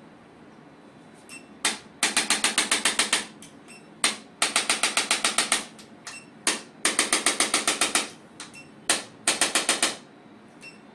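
Chiropractic adjusting gun firing four runs of rapid clicking thrusts, about ten a second and about a second each, every run opened by a single click. It is being used to loosen stiff facet joints of the spine.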